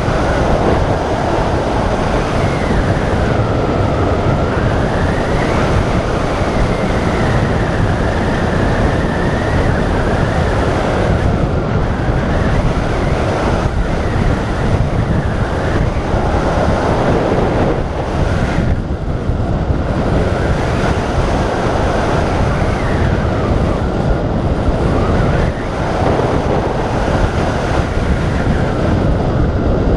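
Loud, steady rush of wind over the microphone of a camera mounted on a hang glider in flight, with a faint whistle that slides up and down in pitch.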